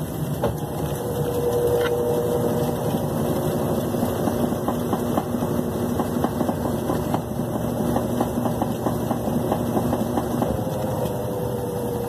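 Brastemp BWL11 front-loading washing machine spinning its drum at speed in the spin cycle: a steady motor hum with a fast run of light clicks through the middle. Near the end one tone drops away and another slides down in pitch.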